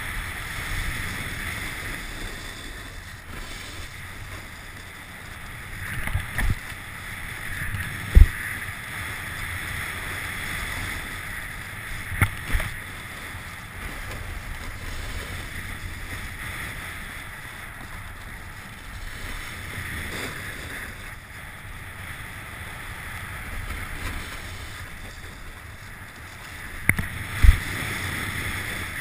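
A snowboard sliding and carving down a groomed slope: a steady rushing scrape of the base and edges on the snow, mixed with wind past the camera. A few sharp knocks come through, the loudest near the end.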